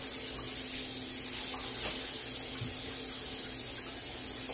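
Water running in a steady stream, being added to the pot roast for more cooking liquid.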